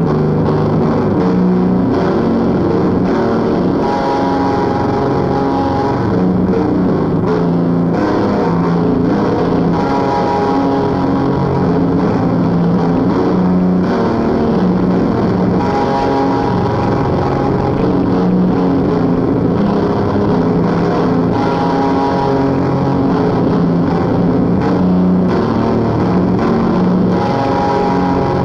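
Lo-fi instrumental noise/shoegaze music, a dense droning wash of distorted guitar at a steady level, with a higher phrase coming back about every six seconds. It is a home cassette recording, taped through the air off another cassette player, so the top end is dull.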